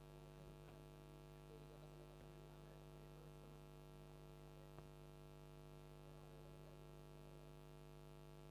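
Near silence apart from a faint, steady electrical mains hum with its overtones.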